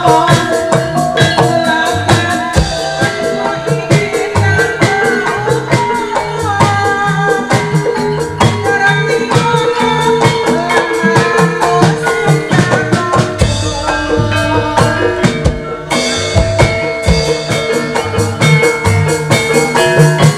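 Banyumasan gamelan music accompanying an ebeg dance: hand drums beating a steady, driving rhythm under a melody on struck keyed percussion instruments.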